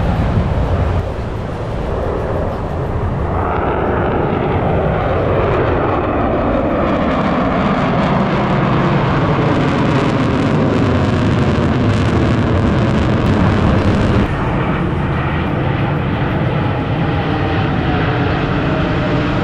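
Jet noise from Blue Angels F/A-18 Super Hornets flying past, loud and sustained, with tones that sweep up and down as the jets pass.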